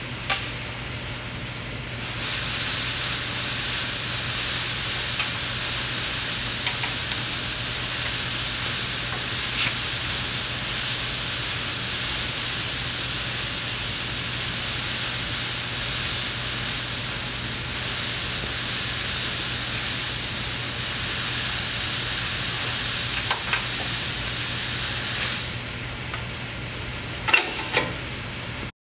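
A steady, even hiss that starts abruptly about two seconds in and stops a few seconds before the end, with a few light clicks and knocks near the start and near the end.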